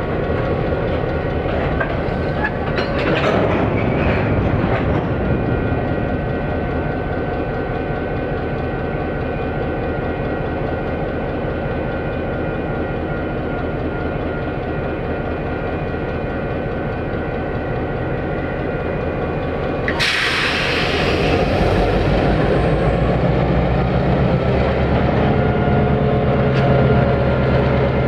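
Non-turbocharged EMD 567 diesel prime mover of a first-generation GP-series locomotive running as the locomotive moves slowly with a covered hopper, with rail and wheel noise. About twenty seconds in there is a sudden hiss, and after it the engine runs louder.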